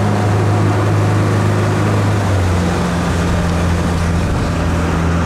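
Motorboat engine running steadily under way, a low drone with a rushing noise over it; the engine note drops slightly about halfway through.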